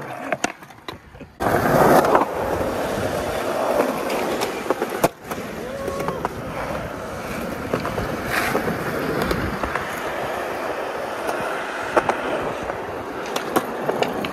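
Skateboard wheels rolling over smooth concrete: a steady rumble that starts suddenly about a second and a half in. Sharp clacks of the board come a few times.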